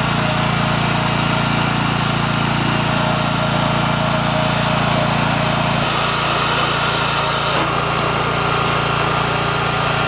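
BCS two-wheel walk-behind tractor with a rotary tiller running steadily as it tills a bed about an inch deep, mixing compost into the top of the soil. The engine note shifts slightly about six seconds in.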